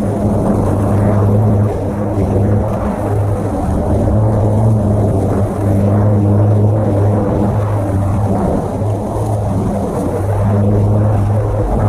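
Greenworks 17-inch cordless battery lawnmower running while mulching leaves: a steady motor and blade hum that dips briefly every few seconds.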